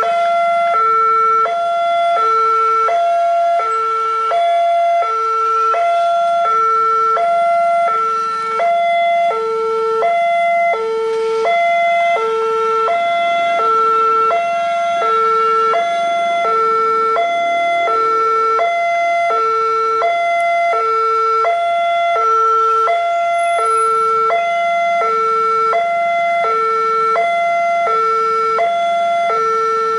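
Railway level-crossing warning alarm sounding continuously. It is an electronic two-tone signal that alternates between a lower and a higher note, each lasting about half a second. It warns that a train is approaching and the barriers are down.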